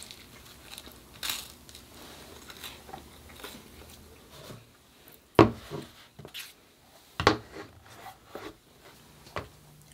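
Tabletop handling sounds: soft rustles and small taps, with two sharp clacks of hard objects on the table about five and a half and seven seconds in, as an iPad in a folio case is pulled over and its cover folded back.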